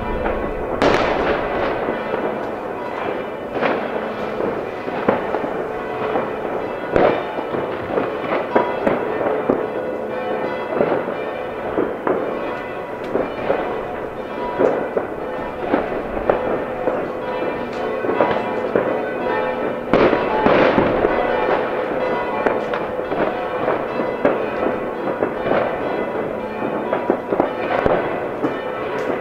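New Year's Eve fireworks going off all over a town: a dense, irregular string of rocket and firecracker bangs and crackles, near and distant, with no pause. A steady ringing tone runs underneath.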